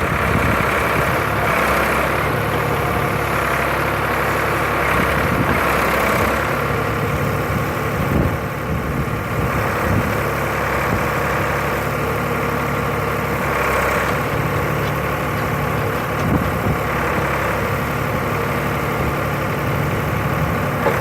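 Backhoe's diesel engine running steadily, its note rising briefly every few seconds, with a few sharp knocks.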